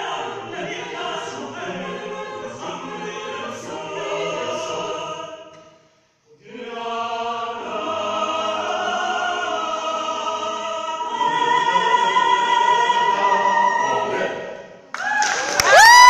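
Mixed-voice a cappella choir singing, breaking off briefly about six seconds in, then closing on a long held chord. As the chord ends near the end, a loud whoop and applause break out.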